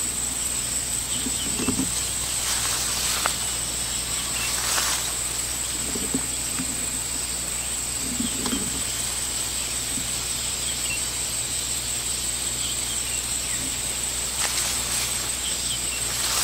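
Steady high-pitched insect drone of cicadas or crickets, with a few brief soft rustles.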